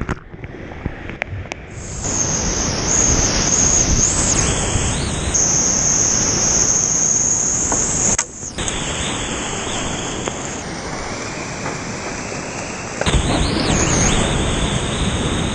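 Rushing whitewater heard from a kayaker's point-of-view camera as the kayak runs rapids and a waterfall drop. The rush is muffled for the first two seconds while the camera is under the water. A thin high whine sits over it through the middle, the sound dips briefly about eight seconds in, and it grows louder again about thirteen seconds in.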